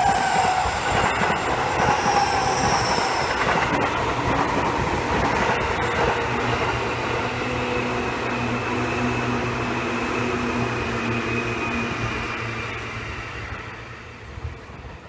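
Electric commuter trains passing close on the near track, one after the other: wheel rumble with a few clacks over rail joints and a steady whine. Through the middle a steady pitched hum is heard as the yellow Seibu 2000-series train goes by, and the sound fades away over the last few seconds.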